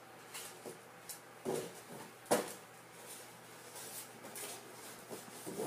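Cardboard tissue box stuck on a cat's head bumping and scraping along a wooden floor as the cat blunders about: a few soft knocks and rustles, with one sharper knock a little past two seconds in.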